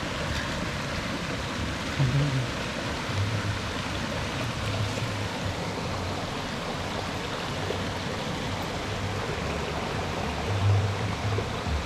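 Steady rush of flowing stream water, with a few short low rumbles about two seconds in and near the end.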